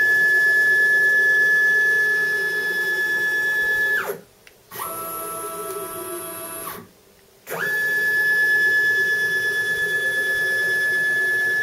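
CNC mill stepper motors driving the table along its ball screw at a steady feed, about 100 inches a minute: a steady high whine that winds down and stops about four seconds in, a quieter, lower whine for about two seconds, another stop, then the high whine again.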